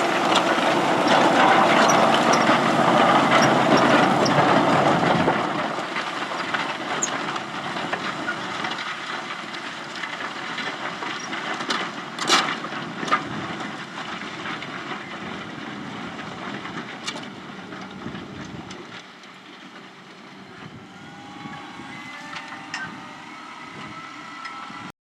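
Fendt 720 tractor pulling a Kverneland plough, loud and close for about five seconds and then fading steadily as it moves away, with a few sharp clanks midway.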